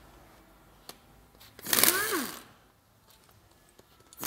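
Handheld power tool run in one short burst about two seconds in: its motor spins up and winds down under a loud rush of noise as it works a fastener on the front of a stripped diesel engine. A second burst starts at the very end.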